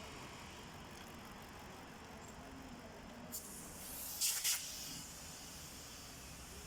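Two short hissing spray bursts about four seconds in, preceded by a click, over the faint steady sound of an idling vehicle engine.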